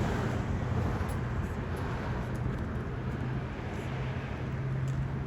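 A vehicle engine idling, a steady low hum over street traffic noise.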